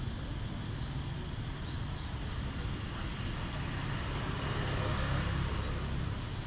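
Street traffic: a steady engine rumble with road noise, growing louder as a vehicle passes about five seconds in.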